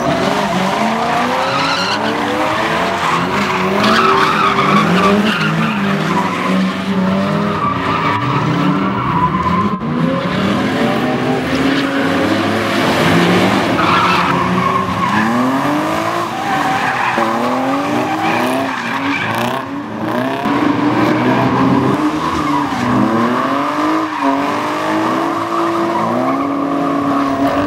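BMW drift cars sliding sideways: the engines rev up and down again and again while the rear tyres squeal and spin in smoke.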